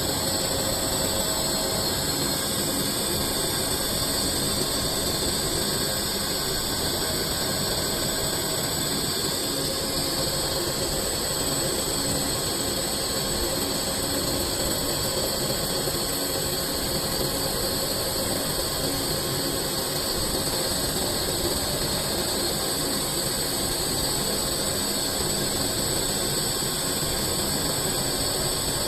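CNC lathe running steadily as it turns a cylindrical blank into a sphere, a constant machining noise with a fixed high-pitched whine over it.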